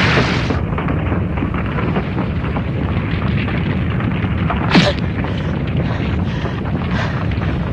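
Cartoon sound effects: a steady, heavy low rumble, with a short sharp whoosh that sweeps downward about five seconds in.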